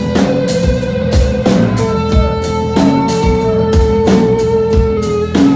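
Live rock band: a Stratocaster-style electric guitar plays long held lead notes, some gliding in pitch, over a drum kit's steady beat with cymbals.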